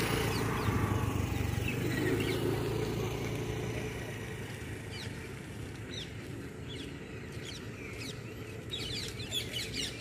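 Birds chirping in short, quick calls, scattered at first and coming thick and fast near the end, over a low rumble that fades out in the first couple of seconds.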